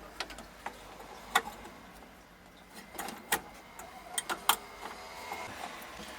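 Scattered sharp clicks and taps, about seven in all, with the loudest near the start and two in the middle. They come from handling on the repair bench as a TV's power supply is connected for a test, over a faint steady hum.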